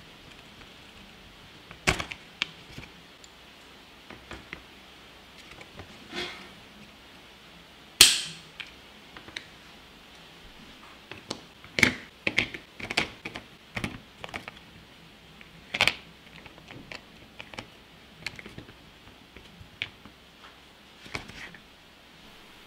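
18650 lithium cells being handled and set into a hard plastic battery pack case: scattered clicks and knocks of the cells against the plastic. One louder knock with a short ring comes about eight seconds in, and a quick run of clicks follows a few seconds later.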